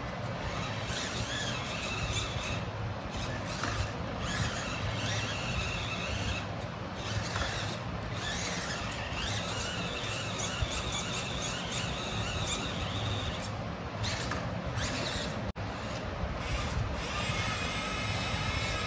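Electric motor and gearbox of an RC scale crawler whining in short, repeated spells as it works over a climbing obstacle, over a steady low hum.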